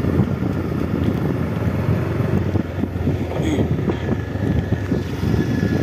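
Wind buffeting the microphone over a steady low rumble from a moving vehicle.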